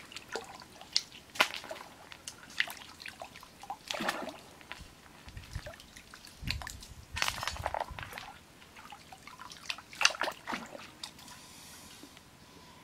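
Hands splashing and dabbling in shallow water, with irregular small splashes and drips and a longer sloshing stretch about six to eight seconds in.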